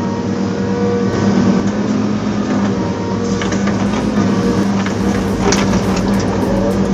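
A heavy machine's engine running steadily, with a few short knocks midway through and near the end.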